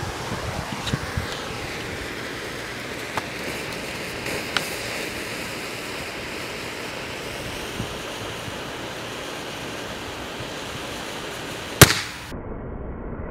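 Torch flame hissing steadily as it heats a lithium battery, with a few small crackles, then a single sharp, loud bang near the end as the battery bursts.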